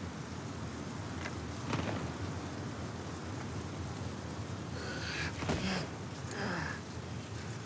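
Steady outdoor background hiss with a few faint clicks and a sharp knock about five and a half seconds in.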